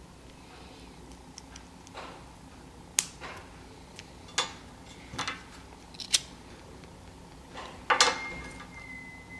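Small sharp clicks and scrapes of fingernails and metal tweezers prying apart the glued layers of a microSD card. About eight seconds in comes the loudest clatter, as the metal tweezers are laid down on the paper-covered glass table.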